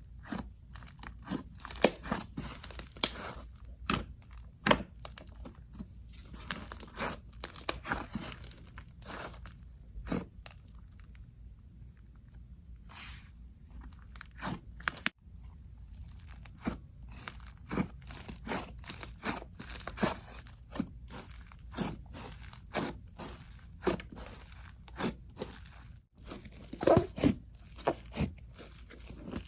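Cloud dough slime blended with clear-glue jelly slime being stretched, pulled and squished by hand, giving irregular crackly tearing and popping sounds with small clicks. There is a louder cluster of crackles near the end.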